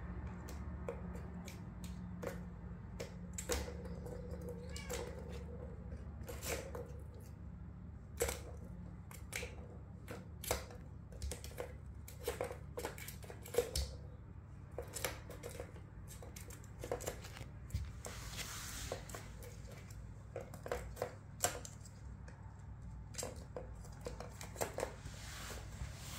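Plastic balls rattling and clicking in a plastic tower-of-tracks cat toy, with paws tapping the plastic, in irregular knocks throughout.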